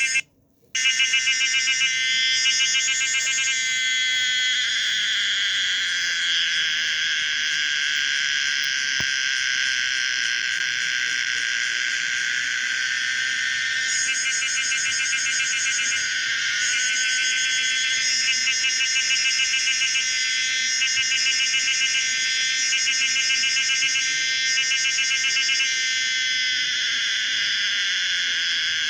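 Call of the cicada Pomponia linearis, recreated from scratch: a loud, continuous high buzzing whine that breaks into a rapid pulsing warble for stretches, a couple of seconds in and again through much of the second half. It cuts out briefly right at the start.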